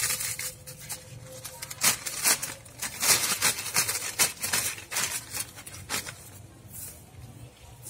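Crinkling and rustling of a black plastic polybag (plant-growing bag) being handled and pulled open, a run of sharp crackles in several bursts.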